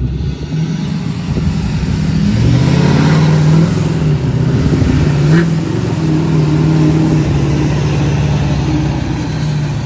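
Lifted pickup truck's engine running hard under throttle as the truck turns tightly enough to lift a front wheel off the ground. The engine note rises about two to three seconds in, then holds steady and loud.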